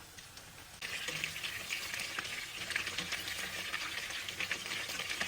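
Cornstarch-coated chicken pieces deep-frying in hot oil at about 160–170 °C for their first fry, sizzling with a dense crackle. The sizzle starts abruptly a little under a second in, after faint ticking.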